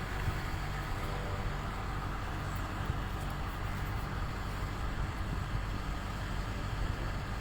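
A vehicle engine running steadily, a low hum under a constant outdoor rush of noise.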